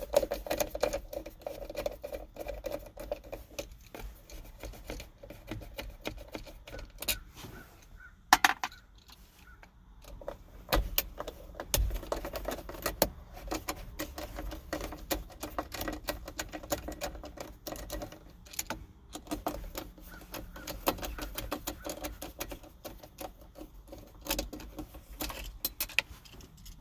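Hand tool backing screws out of plastic dashboard trim, with irregular small clicks and rattles of metal tool and loose screws.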